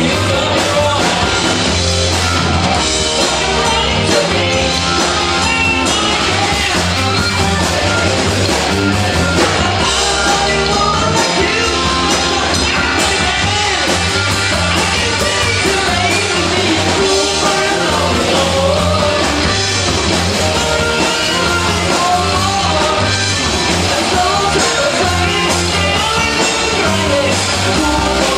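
Live rock band playing: a male singer over electric guitar, bass guitar, keyboards and drums.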